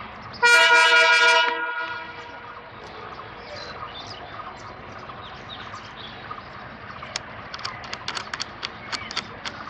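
A single blast of about a second on a diesel locomotive's horn, a chord of several tones, ringing on briefly after it cuts off. Then the low steady running of the shunting train, with a run of sharp clicks and knocks near the end.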